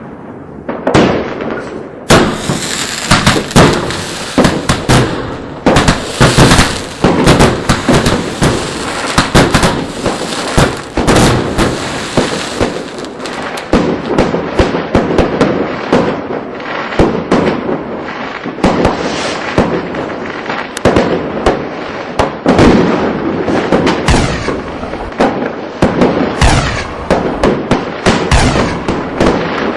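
Fireworks going off in a dense, continuous barrage of bangs and crackling bursts. A bright hissing crackle rides over the bangs from about two seconds in until a little before the middle.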